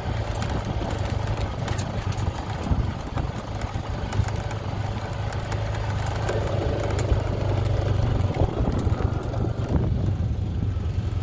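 Honda side-by-side utility vehicle's engine running at a steady low speed, with frequent clicks and rattles from the vehicle.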